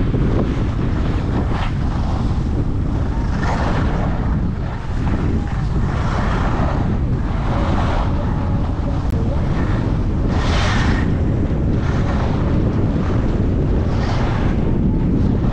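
Wind rushing over a GoPro action camera's microphone during a downhill ski run, with skis hissing and scraping on the snow in surges every couple of seconds as they turn.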